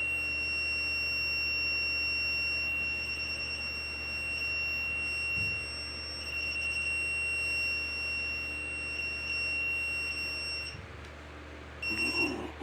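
Handheld radiation meter held to the head, sounding a continuous high-pitched alarm tone that warbles briefly a couple of times, cuts off near the end and returns for a moment just before the end. The owner reads the alarm as a high level of radiation around him.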